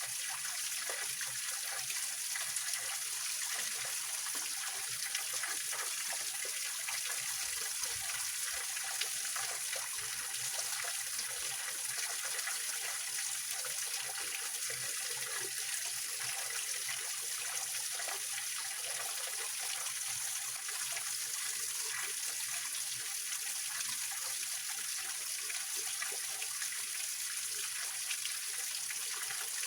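Small waterfall in a rocky mountain stream, water splashing and trickling over rocks in a steady, unbroken rush with a hissy, high-pitched character.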